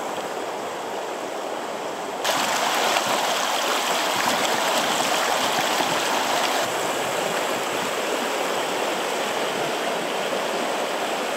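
River water rushing over shallow rocks and riffles, a steady wash that jumps louder about two seconds in.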